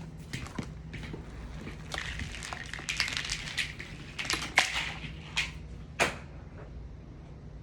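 Handling of a pressure washer's power cord being plugged in: rustling with a few sharp clicks, the loudest a little past the middle.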